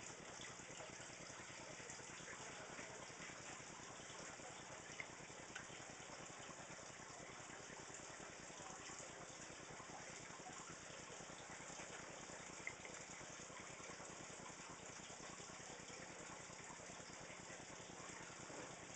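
Near silence: a faint, steady hiss of background noise, with a few soft ticks.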